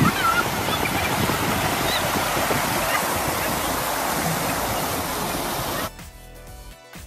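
Mountain-river rapids rushing over boulders, a loud steady rush of white water. About six seconds in it cuts off abruptly, leaving only faint music.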